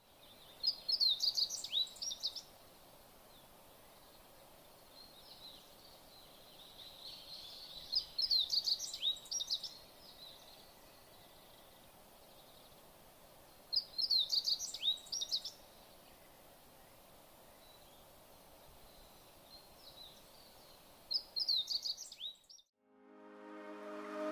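A songbird singing short phrases of rapid, high chirping notes, four times several seconds apart, over a faint steady hiss. Music fades in at the very end.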